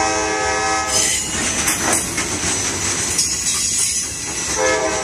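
Freight locomotive horn sounding from the head of the departing train: one blast in the first second and another starting near the end. Between them, the last hopper cars rumble and clatter past on the rails.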